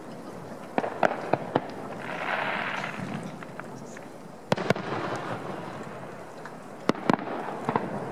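Aerial fireworks shells bursting with sharp bangs in quick clusters: a run of four about a second in, a pair around four and a half seconds, and another cluster near seven seconds.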